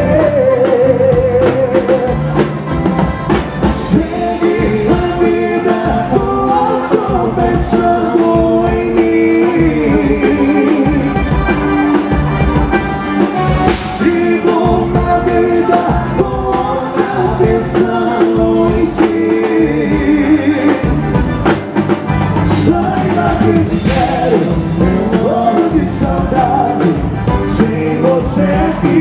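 Live band music: a man singing into a microphone over accordion, electric bass guitar and a drum kit, with a steady beat.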